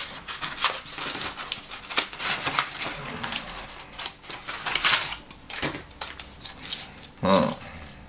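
MRE packaging handled on a table: a cardboard carton and ration pouches rustling and crinkling in quick irregular crackles, with a short lower sound about seven seconds in.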